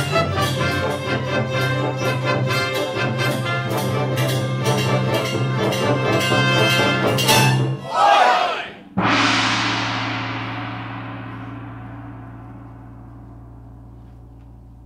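Full orchestra with strings, brass and timpani playing a fast, rhythmic closing passage. About eight seconds in there is a brief swell and a short break, then one loud final chord with a crash that rings out and fades slowly.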